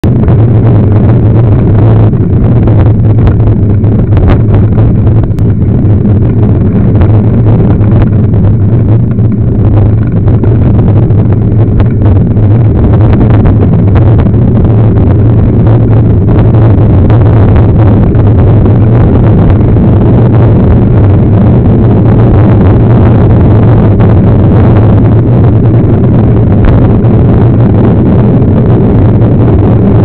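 Loud, steady wind roar on the microphone of a bike-mounted camera as a mountain bike rolls along a dirt road, with a few short clicks and rattles from bumps.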